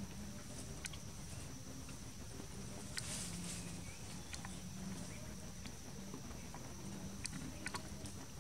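Outdoor ambience of a steady high-pitched insect drone, with a few soft clicks and a brief rustle about three seconds in.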